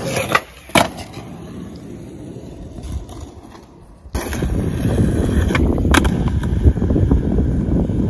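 Skateboard on coarse asphalt: two sharp clacks in the first second as the board strikes the ground during a no comply. From about four seconds in, the urethane wheels are rolling loudly over the rough surface, with a few knocks.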